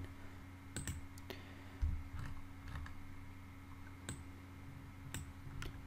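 Computer mouse clicking: a few separate, sharp single clicks spread over several seconds, with a soft low thump about two seconds in, over a faint steady electrical hum.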